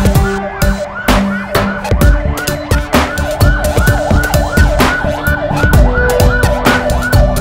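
A fast yelping siren, its pitch rising and falling about five times a second, over a music track with a steady drum beat and held bass notes.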